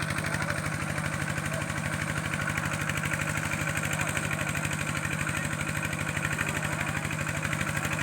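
Small engine running steadily at idle, with an even, rapid pulsing.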